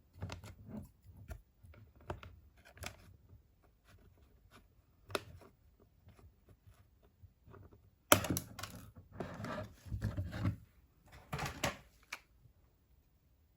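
Hands handling and opening toy packaging: irregular light taps, clicks and rustles, then a sharp snap about eight seconds in followed by several bursts of crinkling and tearing.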